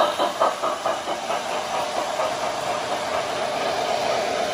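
O-scale model trains running: the Lionel Commodore Vanderbilt steam locomotive's sound system chuffing about four times a second, with hiss. The chuffing fades about a second and a half in, leaving a steady hum and hiss of the running trains.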